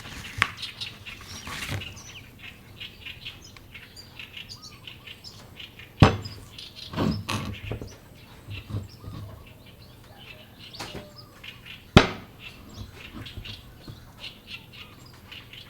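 Birds chirping in the background, broken by two sharp chops of a knife into a coconut about six seconds apart, the loudest sounds, with a few lighter knocks between them.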